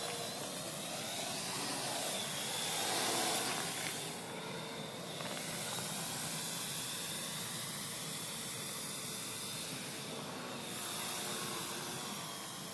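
Parrot AR.Drone quadcopter's four electric rotors whirring in flight, the whine drifting slightly in pitch as it manoeuvres, under a steady hiss of wind on the microphone.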